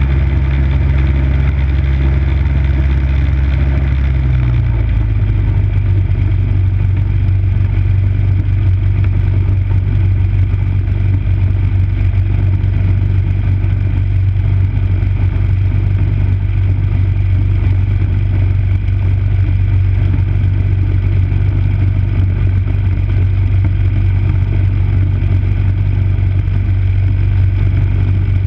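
Running engine of a 5 hp MTD snow blower, a steady single-cylinder note. Its note changes about four and a half seconds in, then holds steady.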